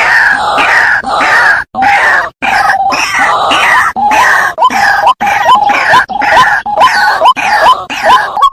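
Waterhen calling: a loud, rapid run of repeated calls, dense at first and then breaking in the second half into separate short notes that hook upward, about two or three a second.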